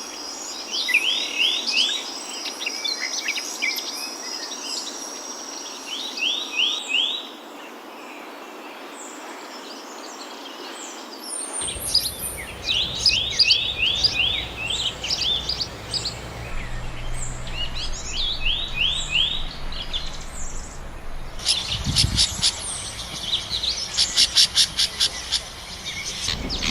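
Wild songbirds singing: short phrases of three or four quick falling chirps, repeated again and again, with other birds calling among them. A steady high insect buzz runs under the first few seconds, and near the end a bird gives a fast run of sharp repeated notes.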